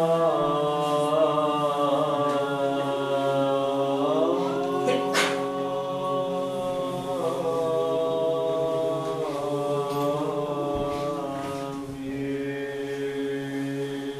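Orthodox church choir chanting a slow liturgical melody over a steady held low note. The melody line shifts upward about four seconds in and again near nine seconds, and a higher voice joins near the end.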